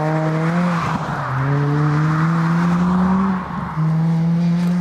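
Ford Fiesta rally car accelerating hard along the stage, its engine note climbing steadily. The revs drop sharply at two upshifts, about a second in and about three and a half seconds in.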